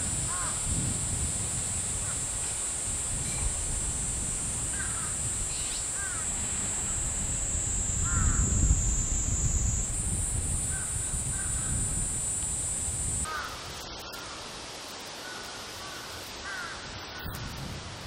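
Azure-winged magpies calling: short, arching calls scattered through, some close together, over a steady high-pitched buzz and low wind rumble. About two-thirds of the way through, the background abruptly drops and becomes quieter.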